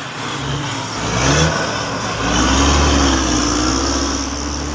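Road traffic passing close by: a coach bus drives past with engine and tyre noise, its engine revving up about a second in, then a steady engine hum as the vehicles carry on past.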